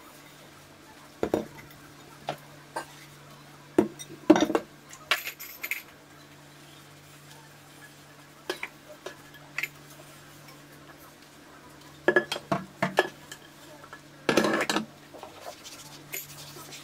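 Hand dishwashing at a kitchen sink: metal pans and utensils knocking and clattering against the sink and other dishware in scattered sharp clanks, with a longer clatter near the end. A steady low hum runs underneath.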